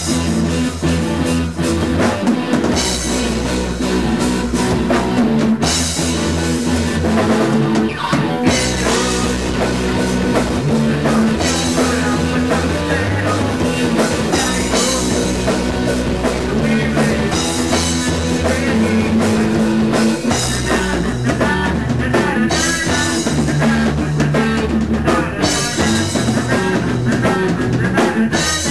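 Indie rock band playing live: electric guitars and a drum kit, with a male singer's voice on top in the later part.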